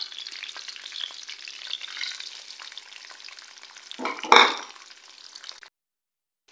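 Whole spices (cumin seeds, cloves, cinnamon, cardamom) crackling and sizzling in hot oil in a karahi. About four seconds in comes a short, louder burst of sizzle as sliced onions go into the oil, and the sound cuts off to silence near the end.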